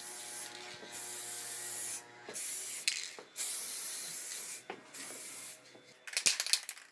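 Aerosol spray-paint can spraying a wheel in about five short hissing passes with brief breaks between them. A few sharp clicks follow near the end.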